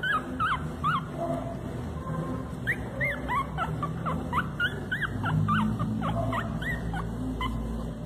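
Young puppies whimpering and crying: many short, rising-and-falling whines, several a second, overlapping one another.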